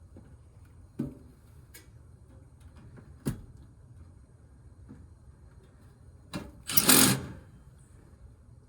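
Hand work on a heat pump's sheet-metal cabinet: a few separate knocks, then near the end a louder rattling burst lasting about half a second.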